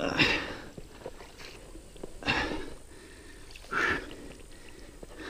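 Three heavy, effortful breaths or grunts about a second and a half apart from a man straining to drag a loaded kayak through wet mud. Under them are the softer scrape of the plastic hull over the grass and the squelch of mud.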